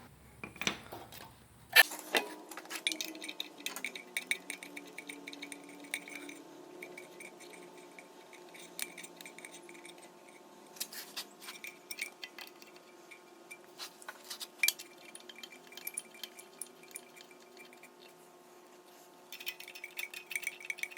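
Scattered light metallic clinks and taps over a faint steady hum.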